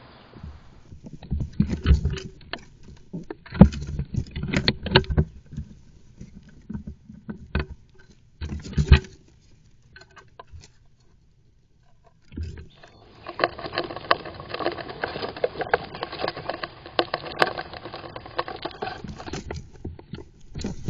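Squirrels moving about inside a wooden nestbox: claws scratching and knocking on the wood and rustling the nesting material close to the microphone. Irregular knocks and scrapes come first, then after a short lull a steady run of fast scratching.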